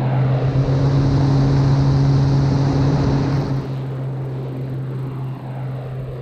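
Draco's Pratt & Whitney PT6A-28 turboprop flying by: a loud, steady propeller drone with a rushing noise over it. About three and a half seconds in, the sound drops in level and loses most of its hiss.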